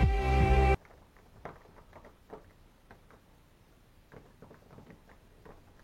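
Background music cuts off less than a second in, then faint irregular small clicks and ticks of a screwdriver driving the mounting screws of a door knob.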